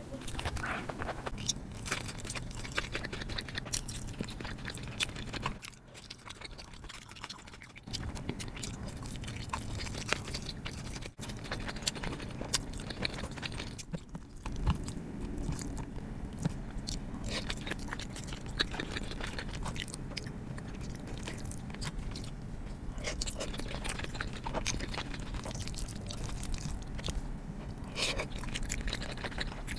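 Close-miked eating sounds: chewing and biting into food, with some crunching.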